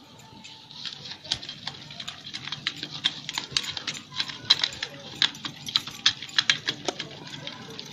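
Wooden ravi (hand churner) twirled in a steel pot of buttermilk, knocking and clicking against the metal in fast, irregular taps over the swish of the liquid as it is churned to a froth.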